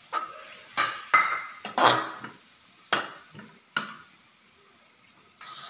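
Metal spatula clanking and scraping against a metal wok while stirring vegetables, about six sharp knocks over the first four seconds.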